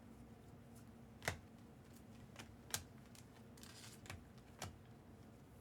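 Faint, sharp clicks and snaps of trading cards being handled and flipped one by one, about six in all, the strongest a little over a second in.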